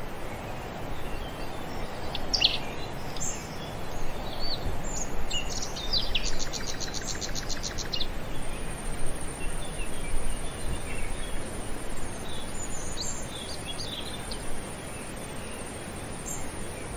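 Open-air country ambience: scattered bird chirps over a steady rushing background. A rapid trill of about seven pulses a second comes a few seconds in, and a thin, steady high insect whine sets in about halfway through.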